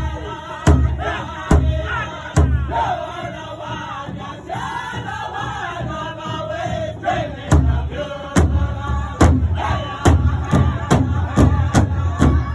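Pow wow drum group singing a round dance song in high, gliding voices over a big powwow drum struck in unison with sticks. The drumbeats fall away for a few seconds mid-way while the singing carries on, then come back and quicken near the end.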